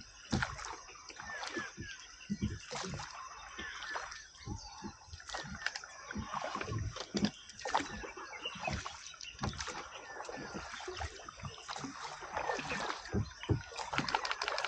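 Water splashing and sloshing around a small rowed boat, in irregular splashes.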